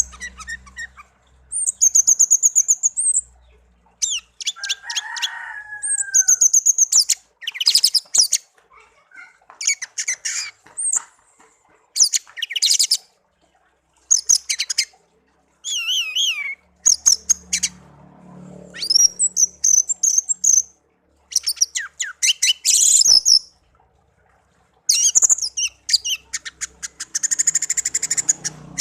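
Pet songbird singing in bursts of rapid, high chirps and trills, each phrase a second or two long with short pauses between, and one lower whistled note about five seconds in.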